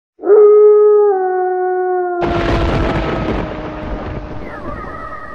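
Intro sound effects: a long howl that drops in pitch in steps, then about two seconds in a sudden boom with a rushing hiss that slowly fades while the howl sinks away beneath it.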